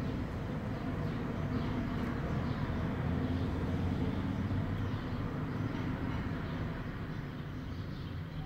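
A steady low rumble throughout, with motor oil being poured from a plastic jug into a funnel made from a cut-off plastic water bottle.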